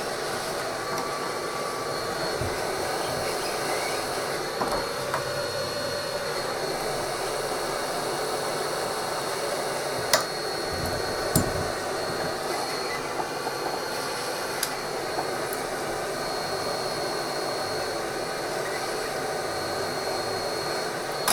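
Electric heat gun running steadily, its fan blowing hot air to shrink heat-shrink tubing over soldered wires; a steady rushing blow with a faint high whine, and a couple of sharp clicks about ten and eleven seconds in.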